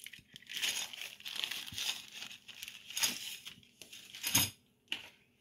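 Plastic packaging rustling and crinkling as a thin plastic push rod and a pair of tweezers are handled out of their wrapping, irregular and mostly high-pitched, with a couple of sharper clicks in the second half.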